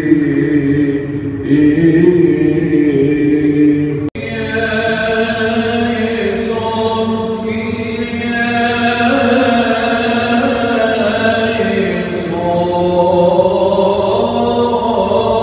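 Unaccompanied Coptic liturgical chant on long, held notes that move slowly in pitch. The sound breaks off briefly about four seconds in, then the chant resumes, fuller.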